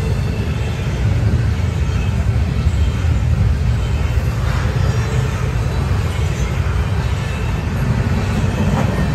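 Double-stack intermodal container train rolling past: a steady low rumble of well-car wheels on the rails.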